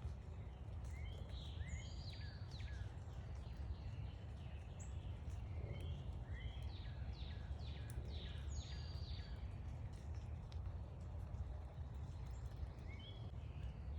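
Small backyard birds chirping in quick runs of short, high notes, busiest early on and again around the middle, over a steady low background rumble.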